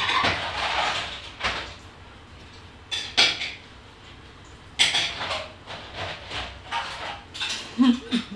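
Kitchen clatter: cupboard doors and dishes being handled in a series of separate knocks and rattles, with a few short low sounds near the end.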